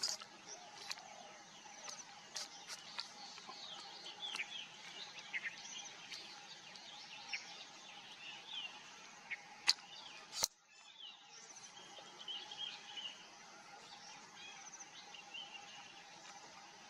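Assorted small birds chirping and calling in a forest background chorus over a steady faint drone, with scattered sharp clicks. Two of the clicks, about ten seconds in, are louder, and the background drops out for a moment just after them.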